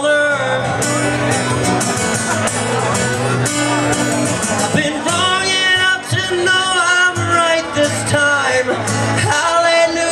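A singer performing live over guitar accompaniment, with sung melody lines that bend in pitch and hold notes, clearest in the middle and near the end.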